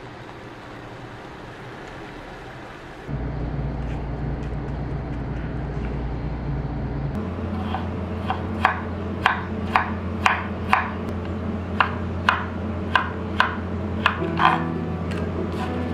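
Chef's knife slicing pickled radish on a wooden cutting board: about a dozen sharp knocks of the blade on the board, roughly two a second, in the second half. Steady background music comes in a few seconds in and runs underneath.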